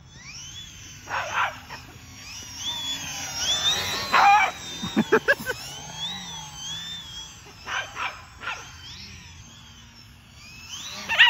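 A dog barking in short bursts, several times, loudest about four to five seconds in. Behind it, a radio-controlled plane's electric motor whines, its pitch rising and falling with the throttle.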